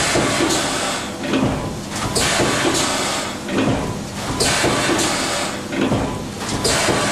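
Arburg Allrounder 470 A Alldrive electric injection moulding machine running its production cycle for flat caps. A steady hum runs under repeated hisses and clunks about once a second.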